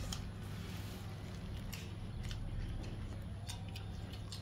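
A person eating rice and meat curry by hand: chewing and lip-smacking with scattered small clicks as fingers work the rice on a metal plate. A steady low hum runs underneath.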